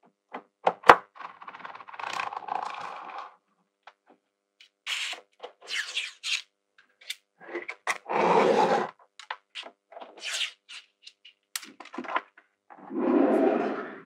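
Small magnetic balls clicking and scraping as slabs of them are handled and pulled apart on a table: a few sharp clicks about a second in, then several bursts of gritty scraping and rubbing.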